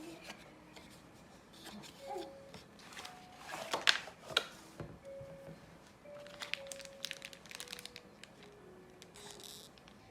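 Soft background music: a simple single-note melody stepping from note to note. Scattered sharp clicks and crinkling handling noises come through, the loudest a few seconds in.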